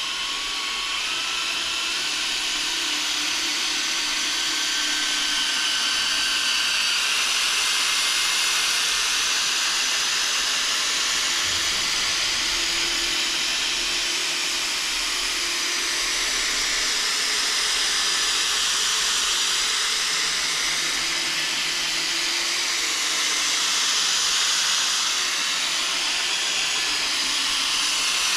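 Ryobi drill running at low speed, spinning a foam polishing ball against a plastic headlight lens: a steady motor whine and hiss, its pitch rising a little about a second in.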